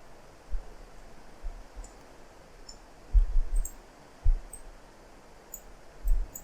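Scattered computer mouse clicks and keyboard key presses, irregular, with soft low thumps among them.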